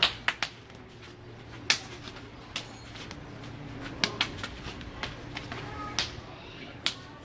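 Forearms and hands slapping against each other in a fast Wing Tsun chi sao (sticking hands) exchange, one partner blindfolded: a string of sharp, irregular slaps, a few in quick pairs.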